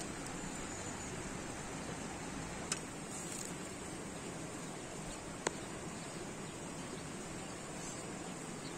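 Steady outdoor background hiss with two short, sharp clicks about three seconds apart.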